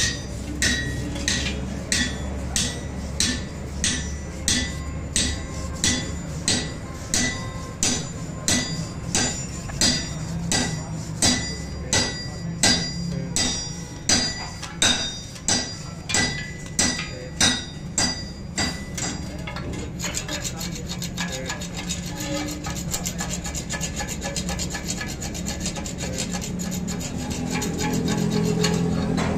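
Chipping hammer knocking slag off a fresh weld bead on a steel truck axle housing, about two sharp ringing strikes a second. About two-thirds of the way through, the strikes give way to quick, steady scraping over the weld.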